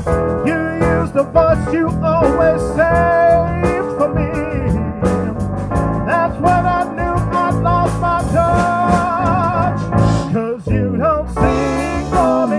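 Live band playing an original tune on drums, electric guitar, electric bass, keyboard and trumpet, with a held, wavering lead line over a steady drum beat.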